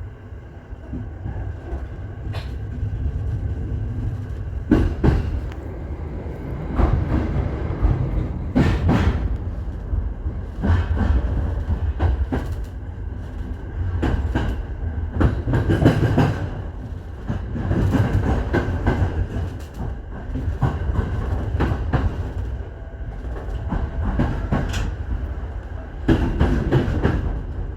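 Train running along the track: a steady low rumble of the cars with repeated clacks of the wheels over rail joints.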